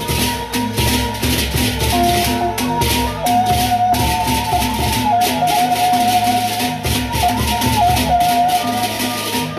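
Sasak gendang beleq ensemble playing: a dense, rapid shimmer of clashing cengceng hand cymbals over the beat of two large barrel drums and gongs, with a sustained melody line stepping between a few notes.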